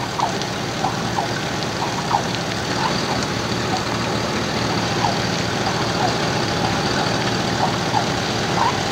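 Steady engine idle and cabin noise inside a vehicle stopped with its engine running, with faint snatches of a distant voice.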